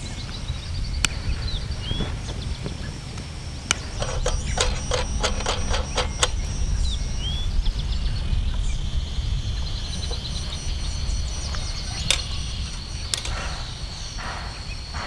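Light metal clicks and knocks from a Coleman Northstar lantern being put together by hand, with a quick run of clicks as its cap and globe are fitted, then two sharper knocks near the end as it is hung. Birds chirp now and then, and a steady high insect buzz sets in about halfway through.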